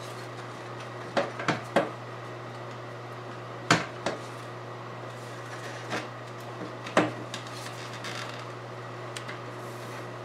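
Scattered light metal clicks and clinks, about half a dozen, from hands working hose clamps and fittings on the radiator hoses, over a steady low hum.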